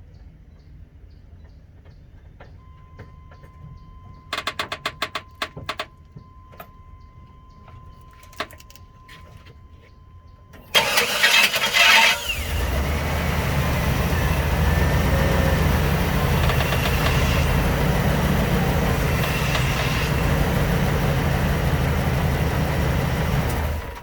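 A 1998 Chevy K1500 pickup's engine is cranked by the starter, catches after about a second and a half, and idles steadily for about eleven seconds before being shut off. Before the start there is a steady electronic chime tone from the cab and a quick run of clicks.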